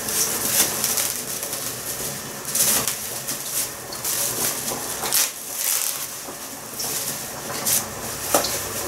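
Thin plastic bag rustling and crinkling in irregular bursts as it is handled and opened by hand.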